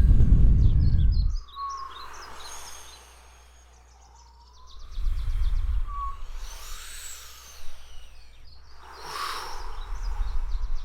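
Outdoor nature ambience: birds chirping and trilling, with short whistled glides, over a low rumble that swells loud at the start and again about five seconds in and near the end.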